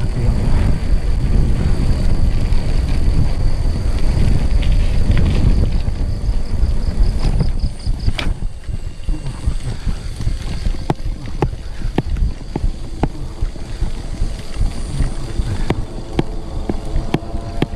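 Low rumble of wind and handling noise on the microphone from a bicycle ride on a rough path. From about halfway there are scattered sharp clicks and cracks, with a faint steady high chirring of insects behind.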